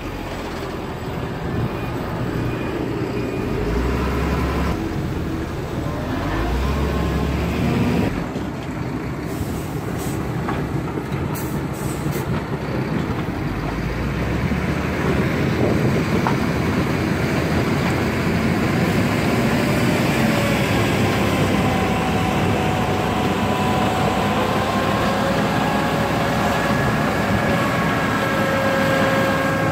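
Heavy diesel machinery running: a dump truck's engine at first, then a Cat 432F backhoe loader's diesel working under load as it pushes soil with its front bucket. In the second half a steady whine, wavering slightly in pitch, rides on the engine.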